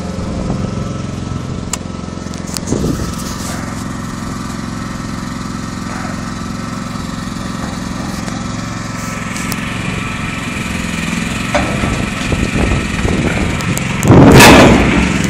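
Small engine running steadily, driving the hydraulics of a trailer-mounted log loader as its grapple swings logs onto the trailer. Near the end, a loud rush of handling noise on the phone's microphone.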